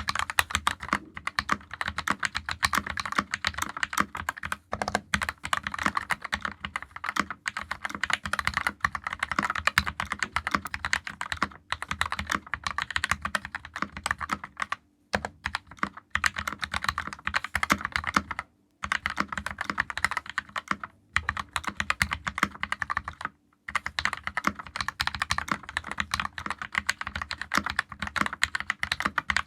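Fast, continuous typing on a custom 60% mechanical keyboard: Keyfirst Cream linear switches, lubed with Krytox 205g0 and filmed, on a brass plate in a plastic case, under GMK keycaps. It makes a dense stream of keystroke clacks that stops briefly a few times.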